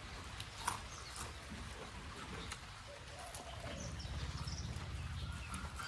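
Quiet outdoor background with a few small clicks and soft mouth and hand sounds from people eating by hand, one sharper click about a second in. Faint bird chirps can be heard a little after the middle.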